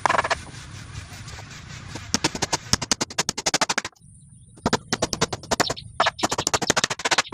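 Cordless impact driver hammering as it drives screws into wood: several bursts of rapid clicking impacts, about a dozen a second, each lasting up to a couple of seconds, with short pauses between them.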